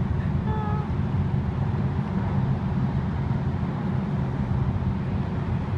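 Steady low rumble of background noise, with a few faint brief tones about half a second in.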